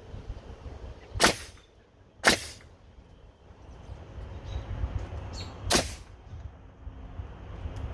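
Pneumatic nail gun firing three sharp shots, two about a second apart and a third near the sixth second, driving nails into a deck railing board.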